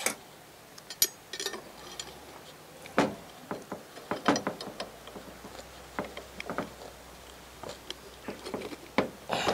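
Steel rotisserie spit and spit forks clicking and knocking irregularly, metal on metal and against a wooden cutting board, as the forks are pushed in and fixed to hold a goose on the spit.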